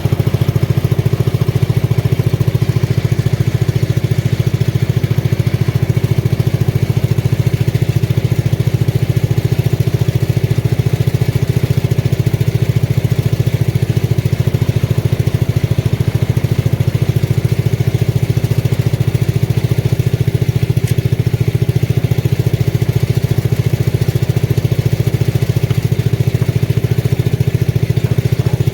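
Engine of a Lincoln Weldanpower 225 engine-driven welder running steadily with an even, unchanging note.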